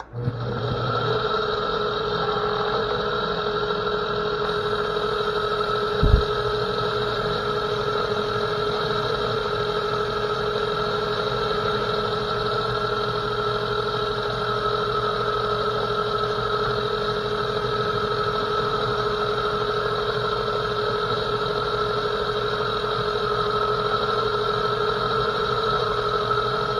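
Metal lathe switched on and running steadily, a constant machine whine over a low hum, with a single low thump about six seconds in.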